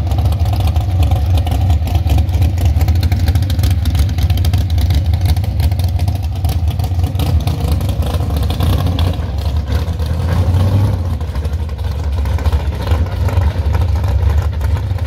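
Engine of a drag-prepared fifth-generation Chevrolet Camaro running loud and deep with an uneven pulsing beat as the car idles and rolls slowly away.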